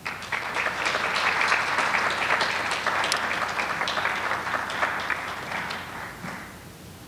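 Audience applauding, a dense patter of many hands clapping that starts at once and dies away about six seconds in.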